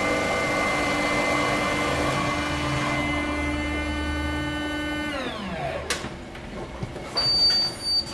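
Capsule coffee machine running steadily while it dispenses into a cup, its pitch sliding down as it winds down and stops about five seconds in. A click follows, then a cup clinking near the end.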